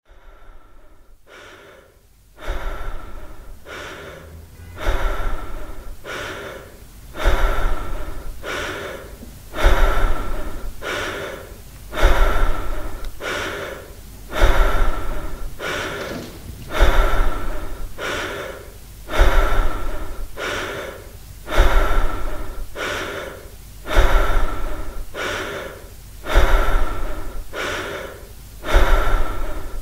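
Rhythmic heavy breathing, one breath about every two and a half seconds, each surging in and then fading. It is faint for the first couple of seconds, then loud.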